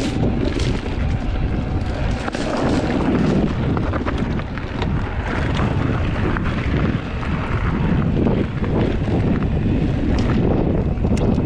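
Wind buffeting the microphone of a camera riding on a moving bicycle: a steady, loud rushing noise with scattered small clicks and knocks.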